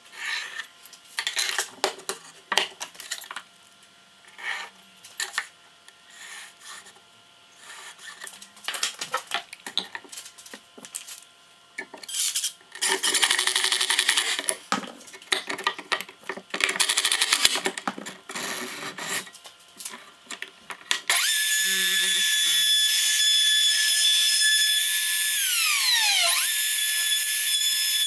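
Pencil scratching on plywood and the clatter of a steel rule and tools being set down, then a compact router starts about three-quarters through and runs with a steady high whine. Its pitch sags and recovers once as the bit bites into the plywood, cutting a circular groove with a circle-cutting jig.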